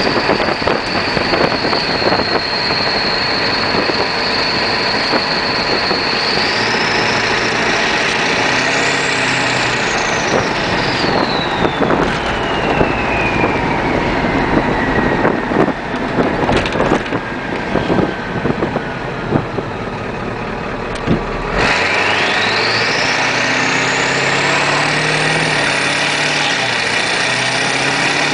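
Straight-piped 7.3-litre Powerstroke V8 turbo diesel of a 1996 Ford F250 running, with a loud turbo whistle over the engine. The whistle holds steady, rises briefly, then falls slowly as the turbo spools down. About three-quarters through the sound changes abruptly and the whistle climbs quickly to a very high pitch as the engine pulls.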